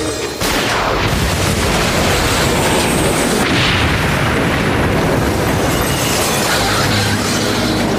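A car exploding: a sudden blast about half a second in, followed by several seconds of continuous blast and fire noise.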